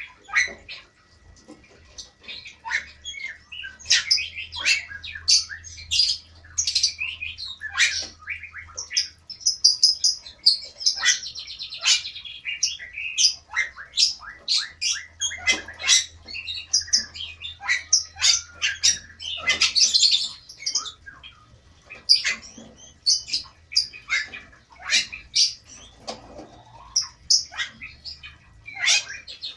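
Caged Bali mynas and lovebirds calling: a dense, irregular chorus of sharp squawks and chirps with no pause.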